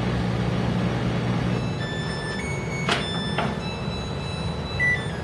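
Samsung top-load washing machine's motor hum stops about a second and a half in as the spin cycle ends, and the washer then plays its electronic end-of-cycle melody, a string of beeping notes at changing pitches, with two sharp clicks a little after the melody begins.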